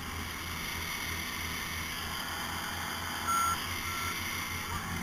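The engine and rubber snow tracks of a tracked side-by-side utility vehicle run steadily with a low throb. A little over three seconds in, a reversing alarm starts beeping in short high beeps.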